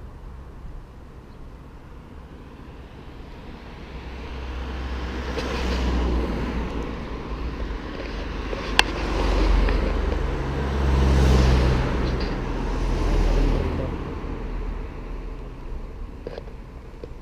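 Road traffic passing close by: a few vehicles go past one after another, their tyre and engine noise swelling from about four seconds in and fading away near the end. A single sharp click about nine seconds in.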